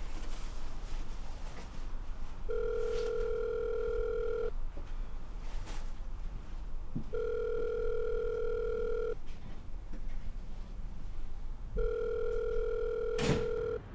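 Telephone ringback tone heard through a phone: the line ringing three times, each ring about two seconds long with a pause between, while the call waits to be answered. A sharp click comes near the end.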